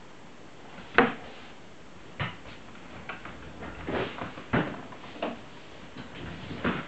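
A series of irregular knocks and clicks, about eight in all, the loudest about a second in.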